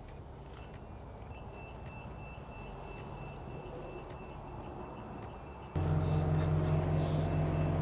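Diesel engine of a Keestrack R3h mobile screening plant running steadily, with a faint thin high whine over it; about six seconds in the sound steps up abruptly to a much louder, steady hum.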